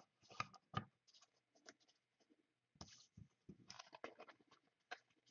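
Faint, scattered clicks and brief scratchy rustles of trading cards and cardboard packaging being handled on a table.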